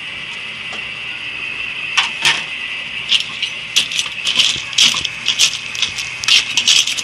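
A metal spoon stirring snails in their shells in an aluminium pot: a run of sharp clinks and clatter of shell against metal starting about two seconds in, over a steady hiss.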